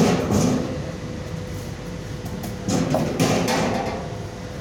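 Knocks and clatter from handling the welding machine and its gear, in two bunches: right at the start and again about three seconds in.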